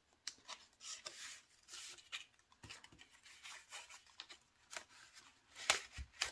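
Paper money and envelopes handled by hand: soft, irregular rustles and scrapes of paper bills, with a louder rustle near the end.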